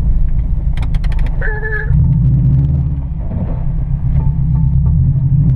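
Vehicle driving off-road during mudding, its engine and running noise making a steady deep drone. A quick run of clicks comes about a second in, followed by a short steady tone.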